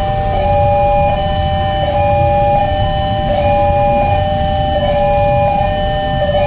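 Railway level-crossing warning alarm sounding, signalling an approaching train. It is a two-tone electronic signal that alternates between a lower and a higher note about every three-quarters of a second, over a low rumble.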